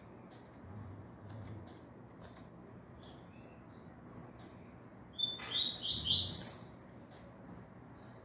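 A moulting caged songbird calling in short, sharp chirps: one about four seconds in, a quick run of several falling call notes a second later, and a last chirp near the end.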